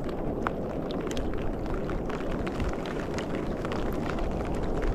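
Wind buffeting the microphone with small waves lapping against a sea kayak's hull, broken by scattered light clicks and splashes.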